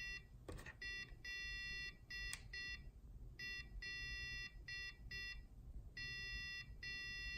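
Buzzer of an ATmega-based Morse code translator beeping out text in Morse code: one steady high tone in short and long beeps, spelling short-long-short-short twice and then three long beeps (L, L, O, the end of "HELLO").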